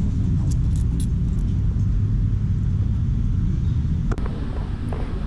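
Steady low rumble of street noise on a camera that is being carried, with a few faint light clicks early on and one sharp click about four seconds in.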